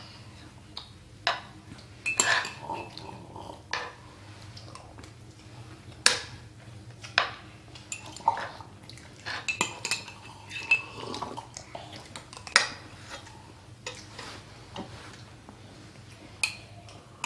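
Metal spoons clinking and scraping against a metal pan while food is scooped from it: irregular sharp clinks, a few ringing briefly.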